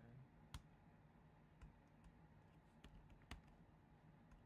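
A few faint, scattered clicks of laptop keys being typed, over near silence.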